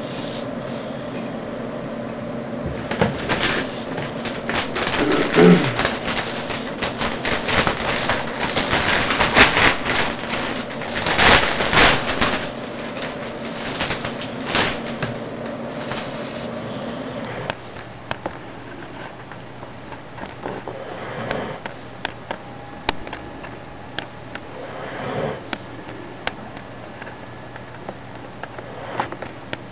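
Pit bull snoring in her sleep: a run of rough, irregular snores, loudest in the first half and softer and sparser later. A steady hum runs underneath and stops about two-thirds of the way through.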